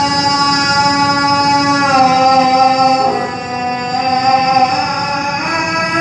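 A man singing an Arabic Islamic devotional hymn (qasida), drawing out long held notes that step lower in pitch about two and three seconds in.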